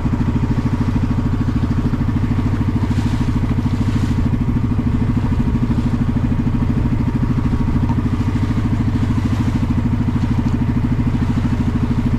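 Small boat's engine running steadily under way, an even, fast low pulse, with water splashing against the hull.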